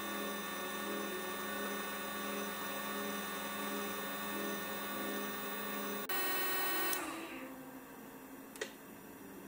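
Converted Sherline CNC mill running as a small end mill cuts a pocket in wood: the spindle and stepper motors give a steady mechanical whine made of several held tones. It drops away about seven seconds in, and a single faint click follows near the end.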